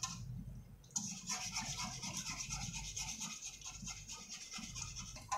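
Besan-battered potato cutlets deep-frying in hot oil in an iron kadai, a steady crackling sizzle that starts about a second in, with a metal slotted spatula rubbing and scraping through the oil against the wok.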